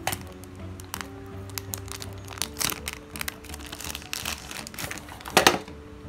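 Clear plastic wrapping crinkling and crackling as it is peeled off a speed cube, in many short crackles with a louder burst about five seconds in.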